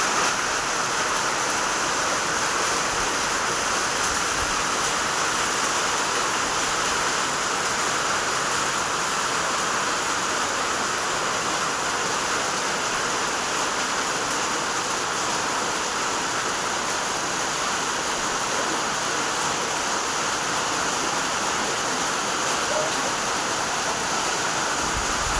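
Rain falling steadily: a dense, even hiss that doesn't let up.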